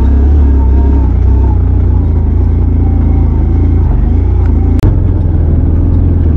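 Motorcycle engine running under load as the bike pulls up a steep track, buried in a heavy, steady low rumble. A sharp click with a momentary dropout about five seconds in.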